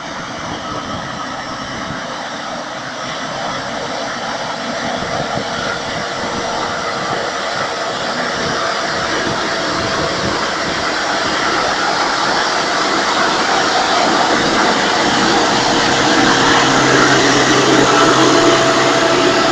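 Farm tractor's diesel engine running steadily as it tows a box scraper, growing louder as it comes closer.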